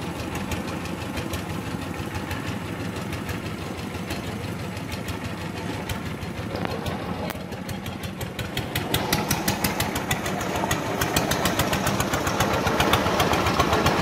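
An engine running steadily with a fast regular pulse, getting louder about eight seconds in.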